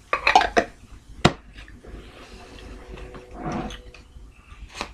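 Clinks and clicks of tabletop handling as the metal lid goes back on a glass pickle jar: a quick cluster of clicks at the start, one sharp click about a second in, then softer handling noise and a last click near the end.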